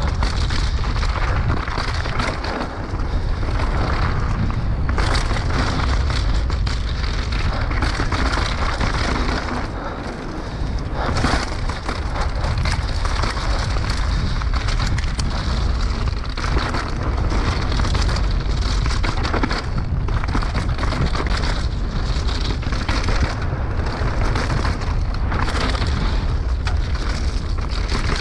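Mountain bike rattling and clattering without a break as it rolls fast over rough trail ground, with a deep rumble underneath.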